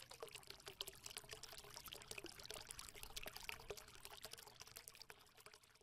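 Faint trickling, splashing water made up of many small, fast drips and droplet clicks.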